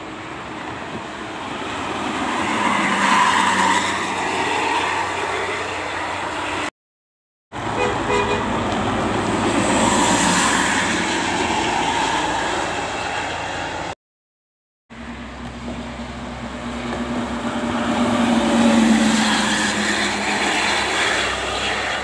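Three intercity buses passing on a highway one after another, each swelling as it goes by and fading, with multi-tone 'telolet' air horns sounding. Each pass cuts off abruptly, with a brief silence between them.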